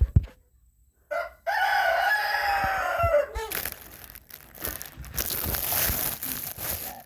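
A rooster crowing once, a long pitched call of about two seconds that drops in pitch at its end. A few seconds of loud rustling noise follow.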